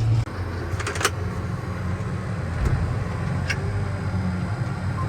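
Grain truck engine running steadily, heard from inside the cab. The engine note drops just after the start, and there are a few sharp clicks or rattles about a second in and again about three and a half seconds in.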